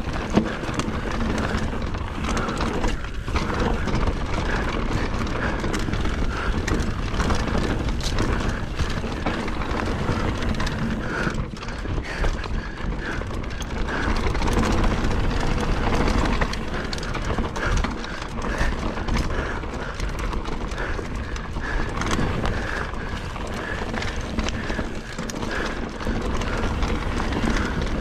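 Mountain bike descending a rough dirt singletrack: tyres rolling and the bike rattling and knocking over bumps, with clicking from the drivetrain.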